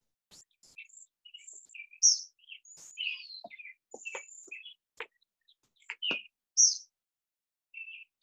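Several songbirds chirping and singing, a quick string of short high notes, with the loudest, higher note coming twice, about two seconds in and again near the end. A few light clicks fall among the calls.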